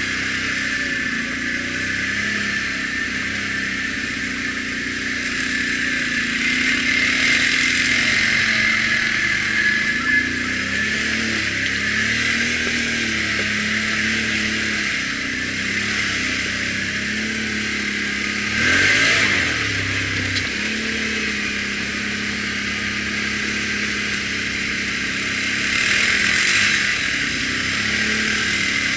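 ATV engine running under way, its pitch rising and falling with the throttle, with a brief louder rev about two-thirds of the way through.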